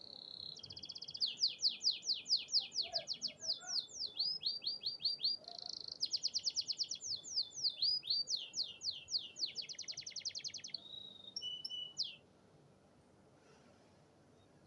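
Canary singing in full song: a long run of fast trills made of rapid, repeated downward-sweeping notes, changing phrase every second or two, then breaking off about twelve seconds in.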